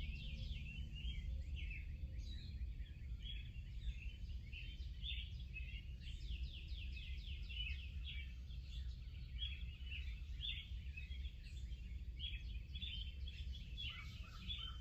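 Several small birds chirping and trilling without a break, with quick falling trill runs, over a steady low rumble of wind.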